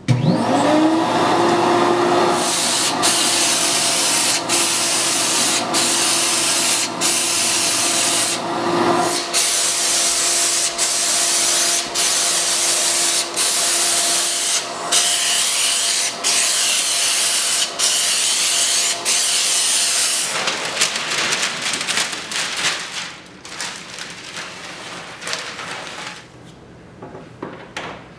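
Spray gun hissing as it sprays water-based white finish onto maple cabinet panels, with a motor whine that rises as it starts. The spray cuts off for a moment each time the trigger is released, about every second and a half. It stops about two-thirds of the way through, leaving faint clicks and knocks.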